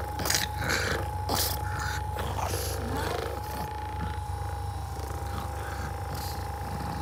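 Handheld percussion massage gun running against a pug's face and body, with a steady whine over a low buzz. A few short, noisy sounds come in the first second and a half as the head presses into the dog.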